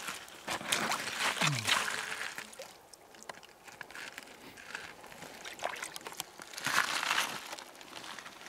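Hands splashing and sloshing in shallow river water while rinsing a freshly gutted grayling, in two bouts: about half a second to two and a half seconds in, and again around seven seconds in, with a short gurgle during the first.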